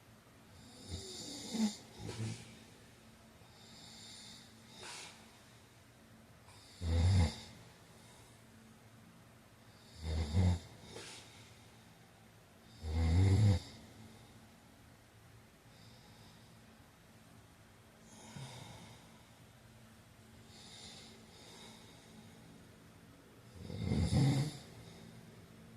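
A man snoring in his sleep. The loud snores come about every three seconds, then there is a long pause with only quiet breathing before another loud snore near the end.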